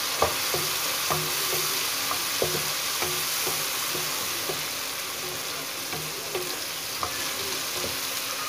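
Onion and tomato masala with its spices sizzling in hot oil in a wok while a wooden spatula stirs it, scraping and giving irregular knocks against the pan.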